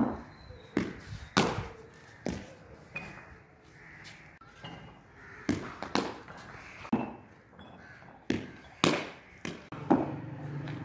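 A series of sharp knocks of a hard cricket ball and a wooden cricket bat, the ball bouncing on a stone-tiled floor and being struck, a dozen or so irregularly spaced.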